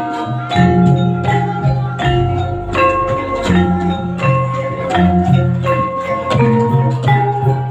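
Javanese gamelan music of the kind played for kuda lumping: metal-keyed mallet instruments ring out a steady run of struck notes over lower, longer-held tones.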